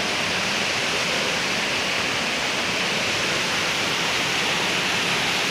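Mountain stream rushing over boulders: a steady, even rush of water.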